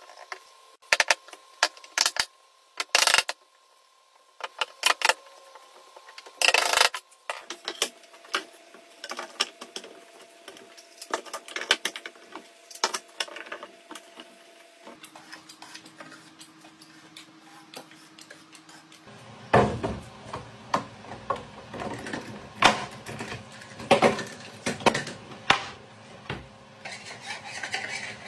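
Sharp knocks and clicks of wooden boards, dowels, clamps and tools being handled during a glue-up of a natural-wood panel, denser in the last part, with hand rubbing on the wood near the end.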